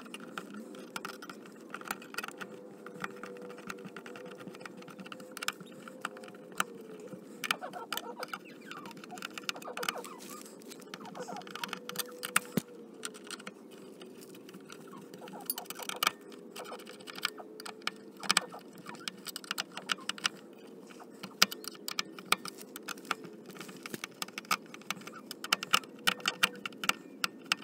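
Screwdriver working the screws of a metal electrical junction box, tightening the cable clamps and fastening the metal cover plate: irregular small metallic clicks and ticks throughout, over a steady low hum.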